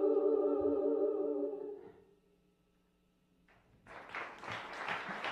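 The song's final held chord fades out over about two seconds. After a short silence, audience applause starts about three and a half seconds in and builds.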